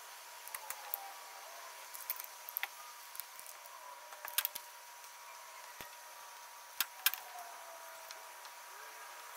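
Small metal clicks and clinks of piston rings and engine parts being handled on a workbench, over a faint steady tone. The sharpest click comes about halfway through, and two more come close together a little later.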